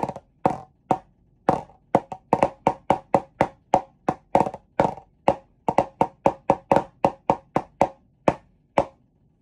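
Wooden drumsticks striking a hard surface in a percussion rhythm: a few spaced strokes, then a run of quick, even strokes about five a second, slowing to a few last strokes near the end.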